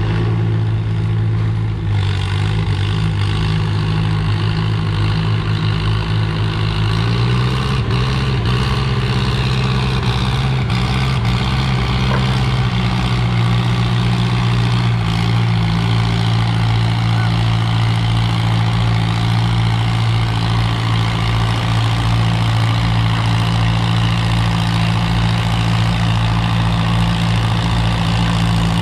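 Farm tractor engine running at a steady speed, a low even drone. Its pitch steps up slightly about seven seconds in and then holds.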